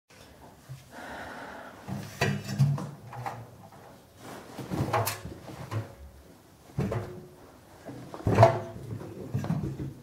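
Clothes being dropped and pushed by hand into the stainless steel drum of an LG front-loading washing machine: a few irregular soft thumps with fabric rustling.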